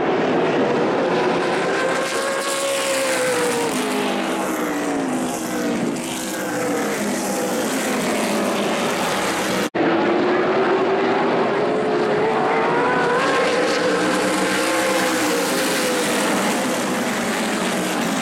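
A pack of super late model stock cars racing on an oval track, their V8 engines rising and falling in pitch as they pass and lift through the turns. The sound cuts out for a split second about halfway through.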